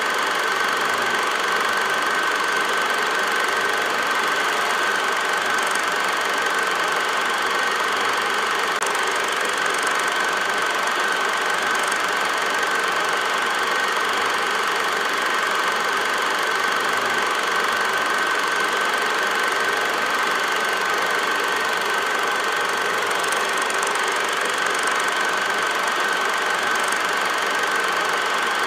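8mm film projector running: a steady mechanical whirr with rapid clatter and a constant high whine, unchanging throughout.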